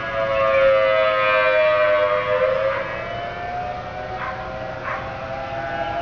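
Several outdoor tornado warning sirens sounding at once, including a Federal Signal Thunderbolt 1000T, each at a slightly different pitch. Their tones slowly fall and then rise again in the attack signal. The sound swells in the first second and eases off about halfway.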